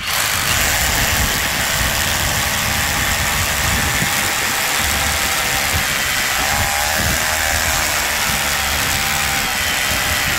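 Einhell Herocco 18V brushless cordless rotary hammer drilling into reinforced concrete with an 8 mm bit, hammering steadily and without a break.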